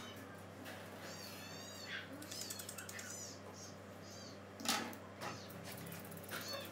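Several short, high-pitched wavering calls from a pet, over a steady low hum, with a sharp click about four and a half seconds in.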